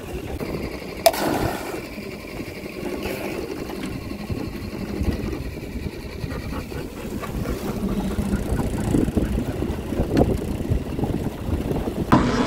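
Outboard motor of a small aluminium boat running steadily under way, with water and wind noise. A sharp click about a second in.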